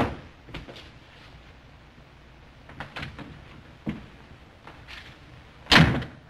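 A few light knocks and footsteps on a wooden floor, then a door is shut with a loud thump near the end, over the steady hiss of an old film soundtrack.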